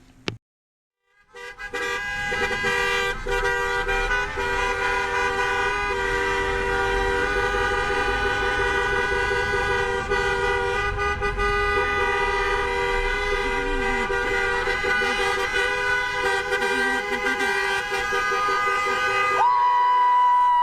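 Many vehicle horns honking together in a continuous, overlapping blare that starts about a second in, with one closer, higher-pitched horn sounding near the end.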